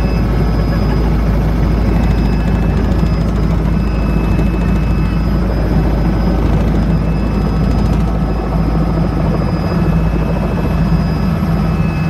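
Rotorcraft in flight: a loud, steady drone of rotors and engine, with a low hum and a thin high whine held evenly.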